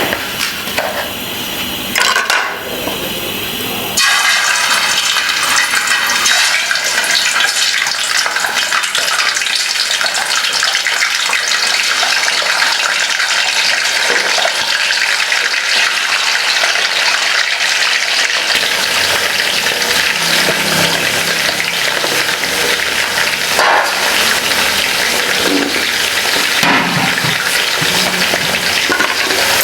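Chicken pieces frying in hot cooking oil, a steady loud sizzle that jumps suddenly louder about four seconds in.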